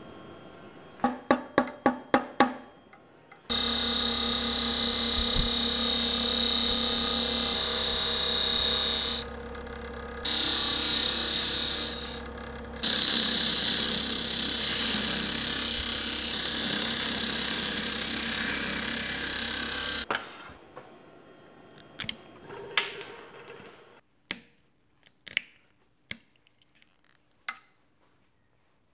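Wood lathe running while a hand-held turning tool cuts into the spinning wooden blank of a box lid: a loud steady cutting hiss with a high whine, broken off twice for a moment. Before it comes a quick run of about seven sharp clicks. After it the sound drops away to scattered knocks.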